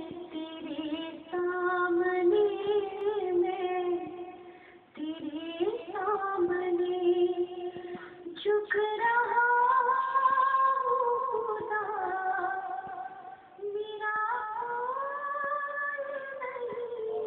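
A woman's solo voice singing a naat, a devotional poem, without accompaniment. It comes in long held phrases with a wavering pitch, heard as played back through a television.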